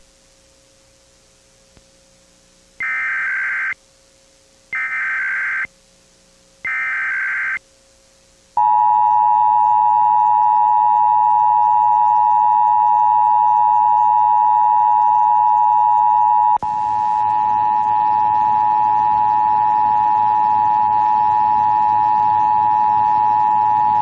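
Emergency Alert System Required Monthly Test tones. First come three one-second bursts of screeching digital header data (the SAME header), about a second apart. Then the EAS attention signal, a loud steady two-tone blare, holds for about fifteen seconds.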